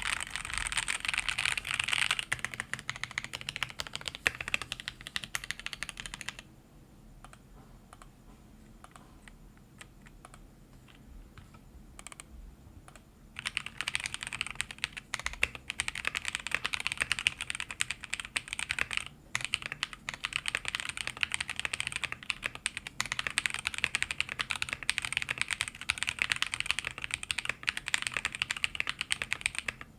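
Typing on a plateless BM60 mechanical keyboard with stock, unlubed Zaku linear switches (polycarbonate top, nylon bottom, long-pole stem) and PBT OEM-profile keycaps, giving quick, clacky keystrokes. The typing pauses for about seven seconds in the middle, leaving only a few faint clicks, then resumes steadily.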